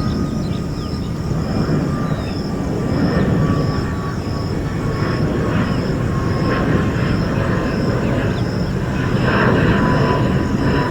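Airplane flying low near an airport: a steady low engine rumble that slowly grows louder, with a thin engine whine sliding gradually down in pitch. A faint high tone pulses steadily in the background.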